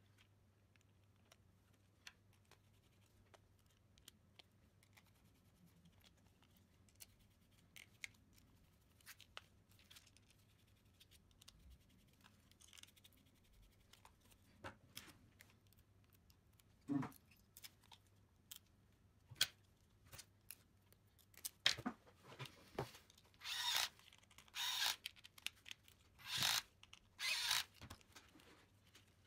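Black plastic gearbox housing and electric motor of an RC car kit being handled and screwed together: faint scattered clicks, then a run of short scraping strokes over the last several seconds.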